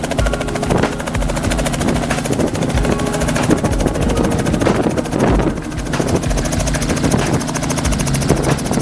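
Robinson R44 helicopter running steadily, its six-cylinder Lycoming piston engine and rotor giving a fast, even beat.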